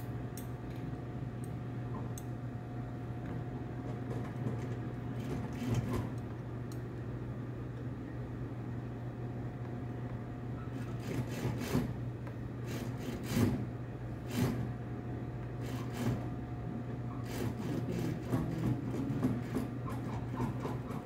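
Sewing machine running with a steady hum as a seam is stitched, with scattered sharp clicks and fabric-handling noises, the loudest a little past the middle.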